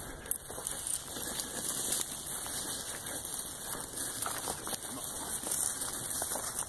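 Footsteps crunching through dry grass and leaf litter, with dry stems rustling against the legs: a steady crackling hiss.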